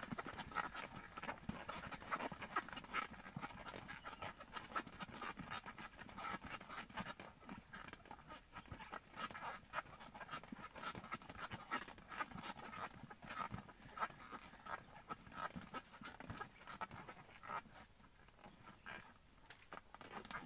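Faint, irregular clicking and ticking, many times a second, over a steady high-pitched whine.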